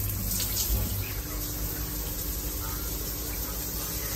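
Shower head spraying water into a shower cubicle, a steady hiss of water.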